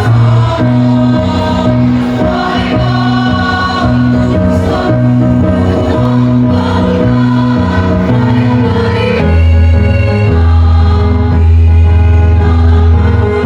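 A choir singing held chords over a low bass line; about nine seconds in the bass drops to a lower note and the sound grows louder.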